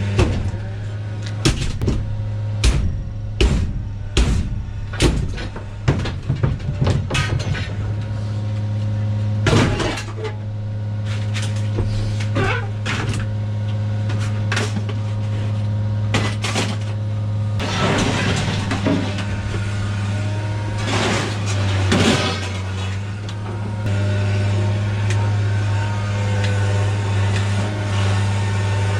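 Sharp metallic clanks and bangs, scrap metal being handled, over a steady low engine hum. The knocks come thick and fast in the first ten seconds, thin out, and a rougher clattering stretch follows later.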